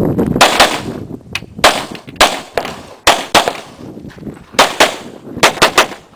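A Glock 22 pistol firing about a dozen .40 S&W full factory loads, mostly as quick pairs with short pauses between them. This is a typical IDPA stage string of fire, ending just before the close.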